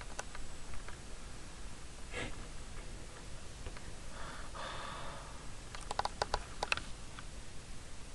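A sleeper's faint snoring breaths: a short snort about two seconds in and a longer breath lasting about a second around four seconds in, then a quick run of small clicks near the end.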